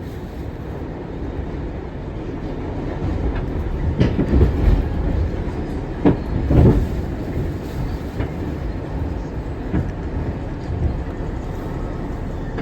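R62 subway train running at speed, a steady low rumble broken by sharp wheel clicks and knocks over rail joints, loudest in a cluster a third to halfway through.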